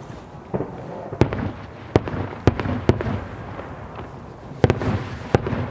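Aerial fireworks bursting: about eight sharp bangs at uneven intervals, each trailing off briefly.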